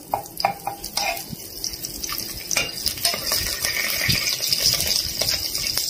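A slotted steel spoon scraping and clinking against a metal pot while stirring food frying in oil, with a steady frying sizzle from about halfway through.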